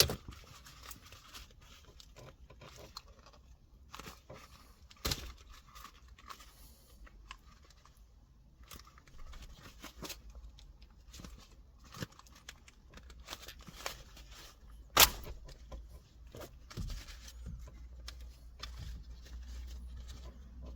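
Hands pulling a gear-lever gaiter off a car's gear knob: rustling of the boot and scattered plastic clicks, with a sharp snap about 5 s in and a louder one about 15 s in.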